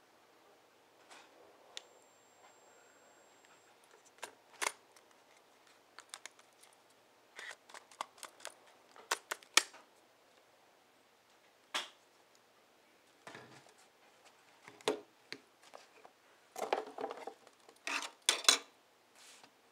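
Handling sounds from a Nikon SB-600 flash unit: scattered clicks of its buttons and sharp knocks and taps as it is picked up, turned and set down on a table, with a denser run of knocks near the end. A faint thin high whine lasts about two seconds near the start.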